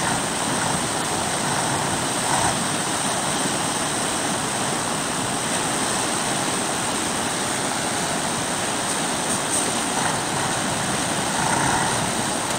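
Steady rushing of a fast muddy flood river, with the drone of a heavy six-wheeled truck's engine as it fords the current.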